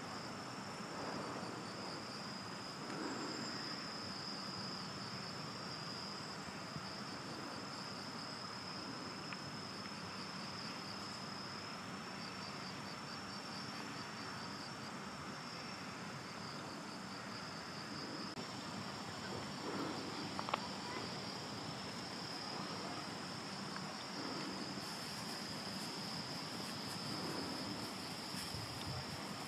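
Crickets trilling steadily in a high, continuous chorus over faint outdoor background noise, with a single short click about twenty seconds in.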